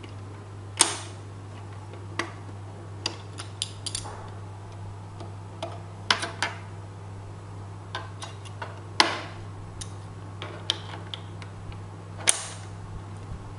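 Metal coins clinking and clattering on a tile floor, as scattered sharp clicks with short ringing tails: a loud one about a second in, a cluster around six seconds, and loud ones at nine and near twelve seconds. A steady low hum runs underneath.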